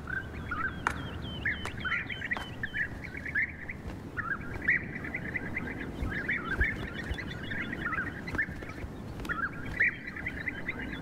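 Several European bee-eaters calling: many short, rolling calls in quick succession, overlapping one another.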